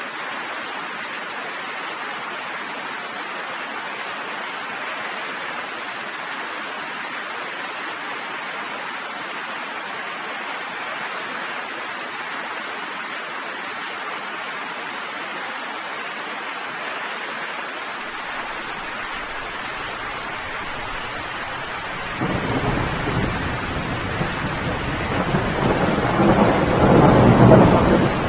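Steady rain, then about three-quarters of the way in a low roll of thunder starts and builds, loudest near the end.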